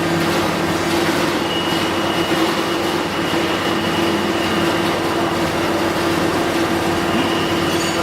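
Water-cooled spindle motor running at a steady speed: a constant hum over a rushing noise, with a high whine joining about one and a half seconds in.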